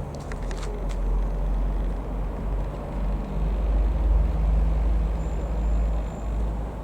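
A low, steady engine rumble that swells to its loudest about four seconds in and then eases off, like a motor passing by.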